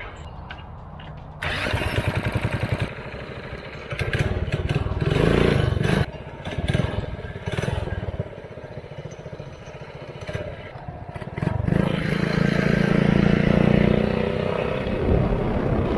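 Mini bike's small single-cylinder engine being started with a drill, catching about a second and a half in. It then revs up and down in bursts and is held at higher revs near the end.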